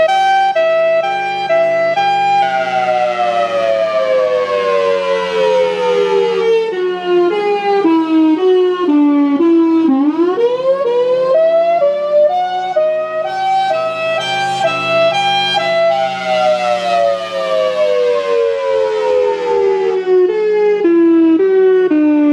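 Outdoor warning siren sounding the attack signal. Its pitch falls slowly over about eight seconds, rises quickly about ten seconds in, holds briefly, then falls again, with a steady low hum underneath.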